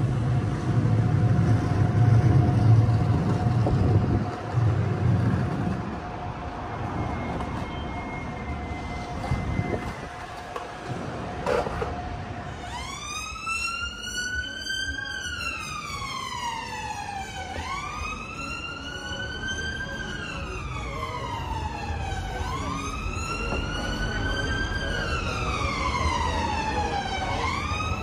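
Road traffic rumbles past in the first few seconds. About halfway through, an emergency vehicle siren starts up in a slow wail, its pitch rising and then falling again about every five seconds.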